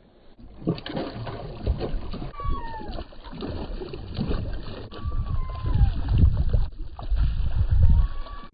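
Hooked fish splashing at the surface as it is brought alongside the boat, with irregular knocks and handling noise from the boat and tackle.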